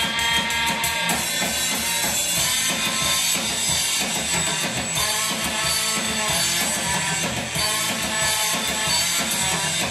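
Live rock band playing an instrumental passage: distorted electric guitars, bass and drum kit, with a saxophone in the band.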